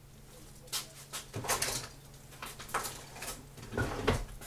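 Thick honey-garlic soy sauce bubbling in a frying pan with meatballs, irregular pops and spits from the bursting bubbles, a few close together near the end.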